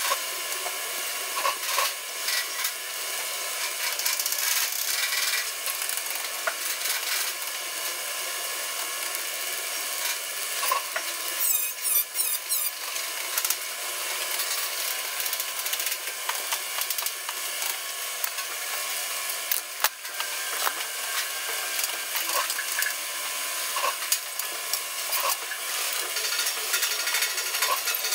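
Steady hiss with frequent sharp clicks and taps as steel pieces are tack-welded and handled on a stainless steel table frame.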